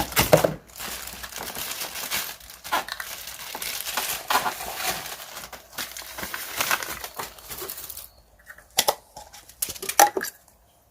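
Plastic packaging being crinkled and pulled apart while unpacking, a dense crackling rustle for about eight seconds, then a few separate clicks and knocks near the end.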